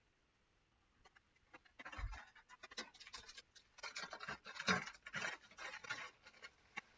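Hands handling rubber bands and an iPhone 6: scratchy rustling with many small clicks, starting about two seconds in. The bands are being readied to hold the freshly glued screen in place while it cures.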